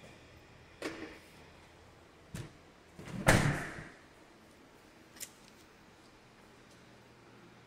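A few scattered knocks and clunks in a quiet, empty room. The loudest comes about three seconds in and fades over about half a second, and a short sharp click follows about two seconds later.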